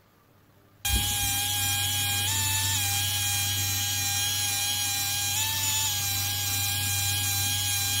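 Handheld 3D pen's feed motor whirring steadily as it extrudes filament, a steady whine that shifts slightly in pitch now and then. It starts abruptly about a second in.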